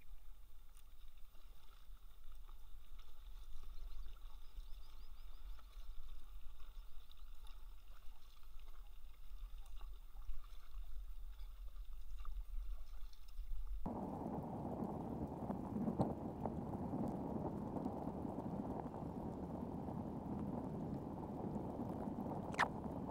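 Muffled water noise from a kayak being paddled on calm lake water, switching abruptly about fourteen seconds in to a steadier low rushing of water, with one sharp click near the end.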